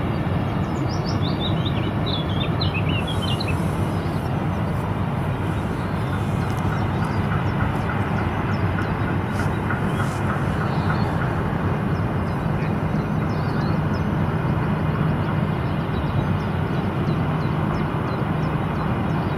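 Steady low drone of a large container ship and its tug under way, even and unchanging throughout. A small bird chirps a quick run of falling notes about one to three seconds in.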